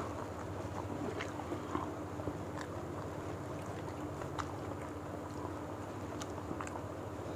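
Faint mouth sounds of people eating rice and fried fish with their hands: scattered small clicks and smacks of chewing. Under them runs a steady low hum and hiss.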